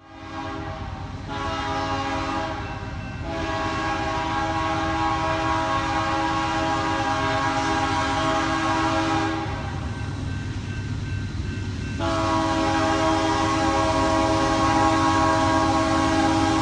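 Nathan Airchime K3HL five-chime air horn on a Union Pacific AC44CW locomotive sounding long chord blasts, with a short break about three seconds in and a longer one around ten seconds, over the low rumble of the passing train.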